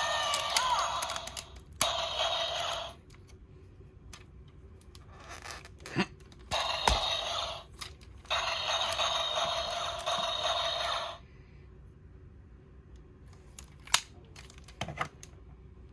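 Electronic sound effects and music from the DX Tega Sword toy's small speaker, played in several bursts, set off by a ring fitted into it. Between the bursts come sharp plastic clicks and snaps as the toy is handled.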